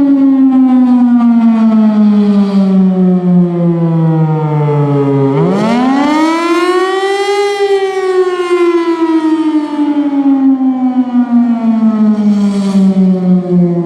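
Federal Signal Thunderbolt 1000 single-tone outdoor warning siren sounding the attack signal. Its pitch slides slowly down, climbs quickly about five seconds in, then falls slowly again, starting another climb at the very end.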